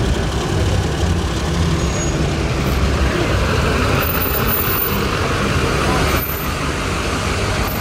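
Engine of a Chevrolet Silverado dually pickup running at low speed as it rolls slowly past towing a loaded car trailer: a steady low vehicle sound.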